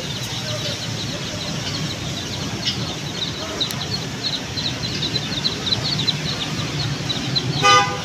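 Many caged birds chirping steadily over a low background rumble, and a short vehicle horn honk near the end.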